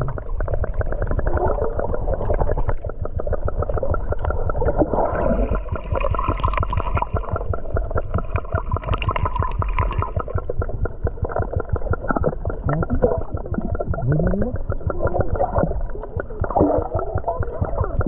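Muffled water sloshing and gurgling, heard by a camera at or just under the water's surface, with a dense, irregular crackle and a heavy low rumble. A few short muffled voice-like sounds come through near the end.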